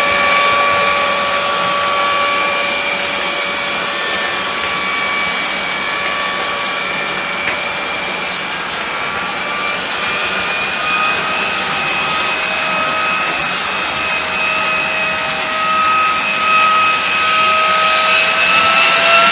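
Jouef HO-scale TGV Ouigo model train running, its small electric motor whining steadily over wheel noise. In the second half the whine climbs slowly in pitch as the train speeds up.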